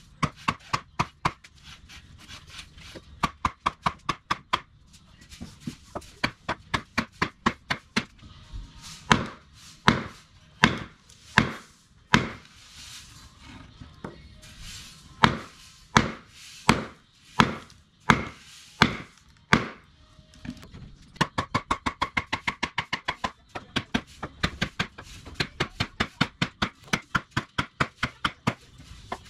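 A wooden baton pounding on a Dark Timber Devil's Horn camp knife driven into a log to split it: a long series of sharp wooden strikes. The blows come quickly at first, then as heavier single strikes about one and a half a second apart, then as a fast run of lighter taps with a faint metallic ringing near the end.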